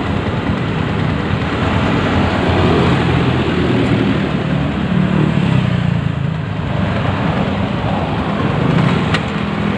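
Motorcycle engine running while riding, its pitch rising and falling a little, with wind rushing over the microphone.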